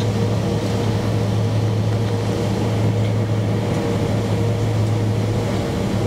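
Steady cabin noise of a Boeing 767-300 taxiing, heard beside the wing engine: the jet engine running at low taxi power with a constant low hum and a fainter steady higher tone over a rushing noise.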